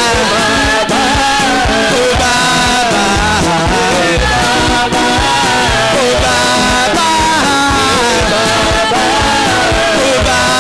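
Live gospel praise music: several singers on microphones over a band with a steady beat.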